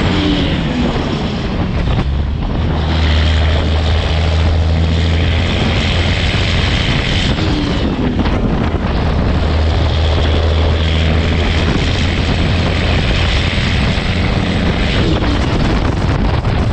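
Cabover Peterbilt 362's diesel engine droning steadily through its straight exhaust stacks at highway cruising speed, with wind rushing over the microphone.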